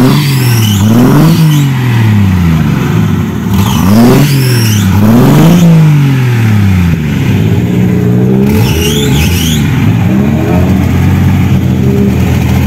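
Offroad buggy's engine being revved up and let back down three times, then running at a steadier speed with smaller swells.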